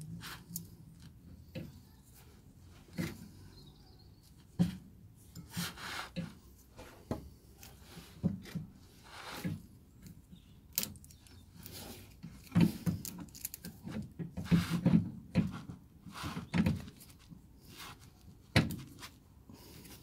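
Steel spanner clicking, scraping and knocking against the nut and ball-joint stud of a rear anti-roll bar drop link as it is fitted and tightened by hand. Irregular clicks and short scrapes, busier in the second half.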